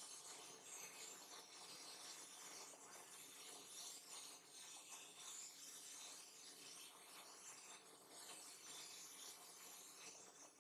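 Powder coating spray gun blowing powder out on compressed air, heard as a faint, steady hiss.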